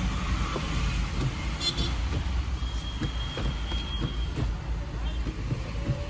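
Steady low rumble of vehicle noise, with scattered light clicks and knocks from the Civic's gear lever being worked by hand.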